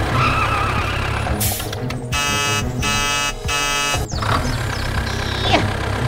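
Tractor engine running with a steady low rumble, and three short pitched blasts in quick succession in the middle.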